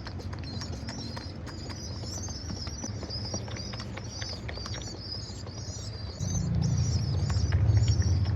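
Birds chirping continuously in a high twittering chorus, with scattered short clicks and taps. About six seconds in, a louder low rumble joins.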